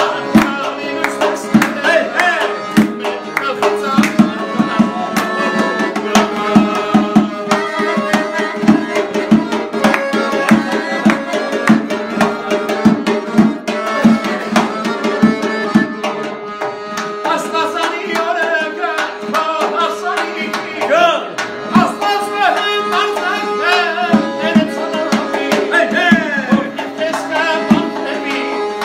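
Accordion playing a melody over a rhythmic percussion beat of sharp hand-drum-like strikes.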